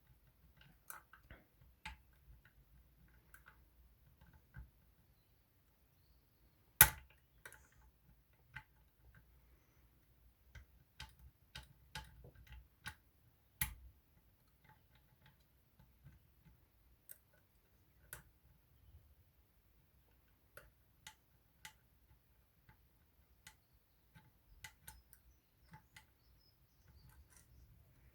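Small, irregular metallic clicks and ticks of a lever-lock pick and tension tool working the levers inside a Union 3G110 five-lever lock, with two sharper, louder clicks, about a quarter of the way in and again about halfway.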